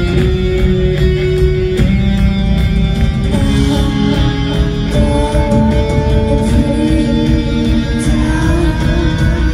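Live rock band playing an instrumental passage with no singing: electric guitars holding long notes that shift pitch every second or two, over bass guitar and steady drum hits.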